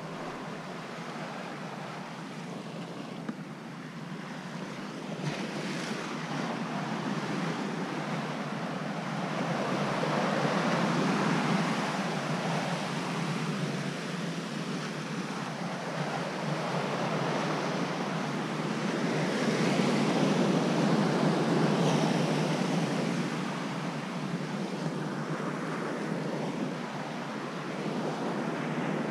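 Ocean surf breaking and washing on the rocks below a sea cliff, swelling louder twice and easing off again, with wind rumbling on the microphone.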